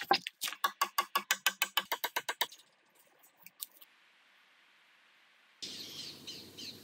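A fast, even run of sharp clicks, about seven a second, that stops about two and a half seconds in. Near silence follows, then from about five and a half seconds in small birds chirp over a steady outdoor hiss.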